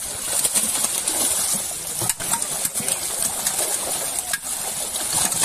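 Many fish thrashing and leaping in a crowded seine net in shallow pond water: dense splashing and splattering, full of short sharp splashes throughout.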